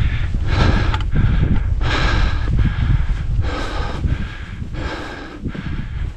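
A hiker breathing hard, about two breaths a second, out of breath from climbing the steep granite slope, over a low rumble on the microphone.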